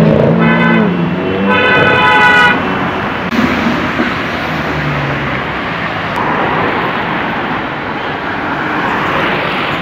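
Road traffic with a car horn honking twice near the start, a short toot and then a longer one of about a second, over a steady wash of passing vehicles. A low engine note dies away in the first second.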